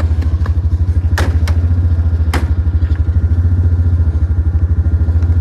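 Small vehicle engine running steadily at a low, even pulse, with a few sharp clacks about one and two seconds in.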